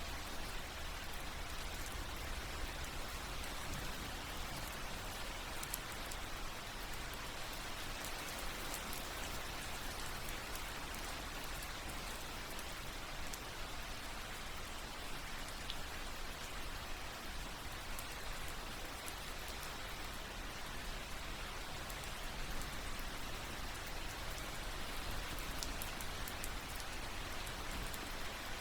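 Steady rain falling in a forest, drops pattering on leaves, tree bark and the forest floor: an even, continuous hiss with scattered single drop ticks.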